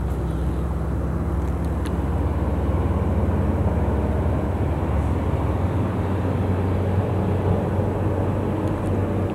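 A boat motor drones steadily and low, with the lowest part of the hum dropping away a little past halfway.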